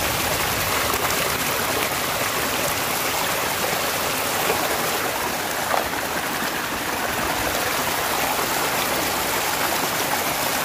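Stream water rushing and splashing over rocks at a small waterfall, a steady rush, with a couple of small knocks near the middle.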